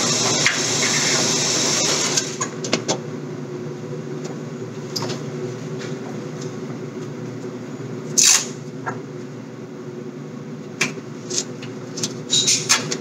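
Steady low hum with a loud hiss that cuts off about two seconds in, then scattered clicks and knocks: one louder knock about eight seconds in and a quick run of clicks near the end.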